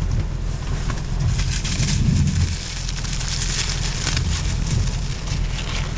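Rain pattering on a Roush Mustang's roof and windshield, heard from inside the cabin, over a steady low rumble from the car.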